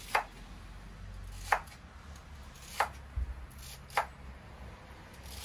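Knife chopping celery on a cutting board: five single sharp strokes, slow and evenly spaced about a second and a quarter apart.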